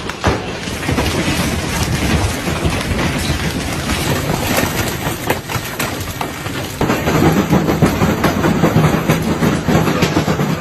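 Hailstorm: a dense, loud clatter of many hailstones striking hard surfaces, the sound changing abruptly about two-thirds of the way through.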